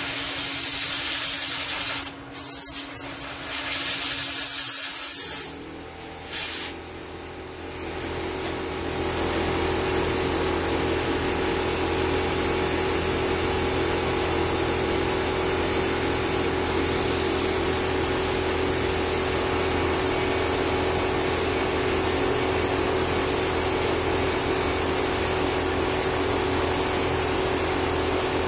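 Compressed air hissing from a blow gun in several blasts, clearing chips from a milling-machine vise. About eight seconds in, a machine starts running steadily with a low hum.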